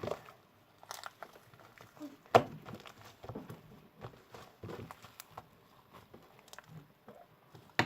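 Homemade slime worked by hand with shaving foam: soft, irregular sticky clicks and crackles, with one sharper snap about two and a half seconds in.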